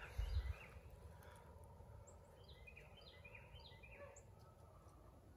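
Faint outdoor ambience with a few short, high bird chirps in the middle, over a low steady rumble, with a brief low bump just after the start.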